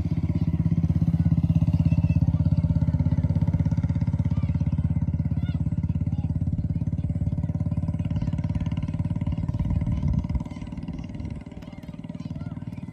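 An engine running steadily with a low, even pulsing. It drops away sharply about ten seconds in and drops again a second later.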